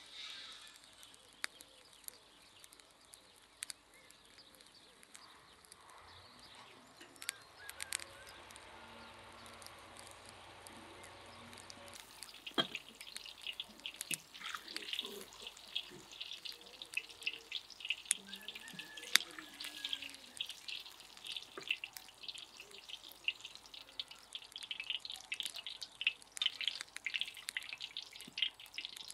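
Quiet with a few scattered clicks, then from about twelve seconds in a dense, steady crackling of small pops: hot grilled vegetables sizzling in their oil and juices.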